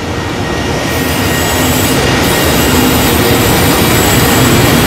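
Electric locomotive hauling a freight train running through a station toward the listener, the rumble and wheel-on-rail noise growing steadily louder as it draws level.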